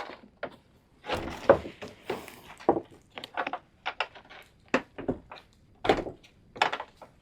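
A string of irregular knocks and clunks, about a dozen, from things being handled and set down.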